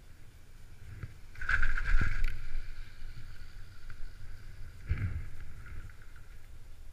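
Chairlift chair passing a lift tower, its grip and haul rope running over the tower's sheave wheels: a loud burst of rumbling and clicking about a second and a half in, then a steady hum that fades, and another brief rumble about five seconds in.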